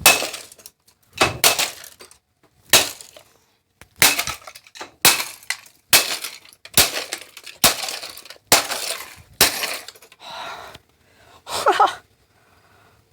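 A stick smashing into a plastic device again and again, breaking and cracking it open, about a dozen hard blows roughly a second apart. Near the end there is a short sound that falls in pitch.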